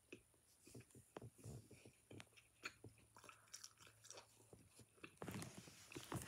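A mouthful of chocolate being chewed: faint, irregular wet clicks and smacks of the mouth, growing louder and denser near the end.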